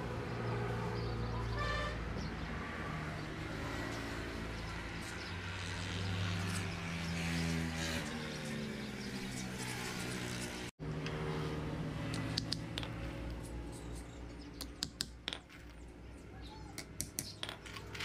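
Sustained low tones, shifting now and then, until a cut about two-thirds in. After that comes a scatter of sharp clicks and taps from nails and a hammer being handled, thickest near the end.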